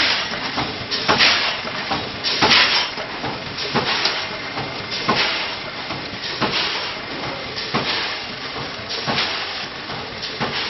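Automatic granule packing machine running, a rushing hiss repeating about every 1.3 seconds as it cycles through bags.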